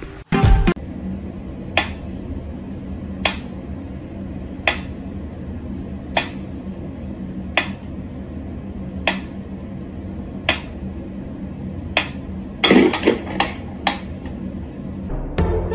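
Wooden pyramid metronome ticking slowly, one sharp click about every one and a half seconds. Near the end a quick clatter of several louder knocks breaks in, and a brief loud burst comes right at the start.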